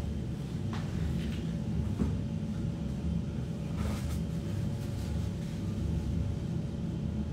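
Steady low rumble with a faint constant hum above it and a few soft, short clicks.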